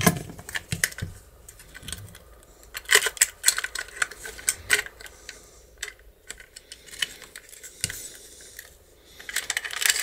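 Sharp metal clicks and clinks of a garage door lock case and its profile cylinder being handled and fitted together, coming in irregular clusters with quieter gaps between.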